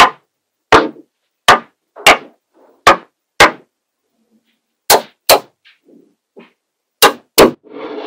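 Cubes of small magnetic balls clacking sharply as they are set down on a hard surface and snapped onto one another: about ten separate clacks, some in quick pairs, with short pauses between.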